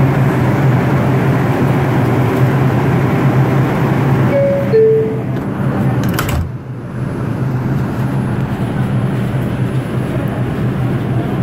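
New York City subway car standing at a station with a steady hum from its equipment. About four seconds in, the two-note falling door chime sounds, and the doors slide shut with a knock about a second and a half later; after that the hum goes on, quieter and duller behind the closed doors.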